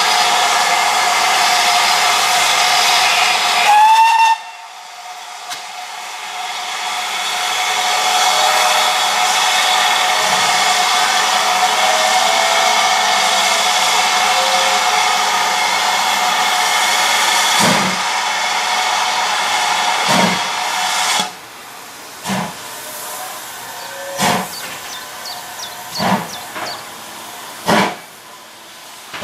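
Steam locomotive blowing off steam in a loud, steady hiss, with a short, rising whistle about four seconds in. The hiss cuts off later, and heavy exhaust chuffs follow about every two seconds: the slow beat of the engine starting away.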